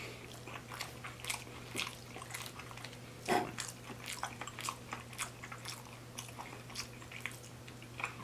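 Close-up mouth sounds of a person chewing spaghetti with the mouth closed: a run of short, wet clicks and smacks. A slightly louder smack or swallow comes about three seconds in.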